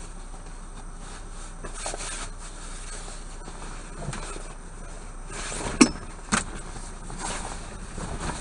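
Steady low hum in a parked semi truck's cab, with scattered clicks and knocks. Two sharp knocks come a little past halfway, about half a second apart, the first the louder.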